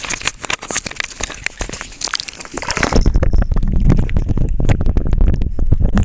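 A hooked mojarra (Caquetaia umbrifera) splashing and thrashing at the water surface, with crackling splashes. About three seconds in, the microphone goes under water and the sound turns to a muffled, heavy rumble with scattered knocks.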